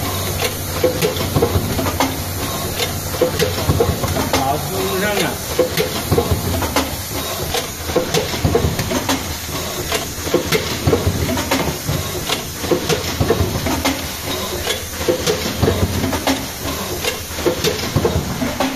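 Card hot stamping machine running: a steady mechanical clatter with frequent sharp clicks and knocks as it feeds cards and foil and stamps them.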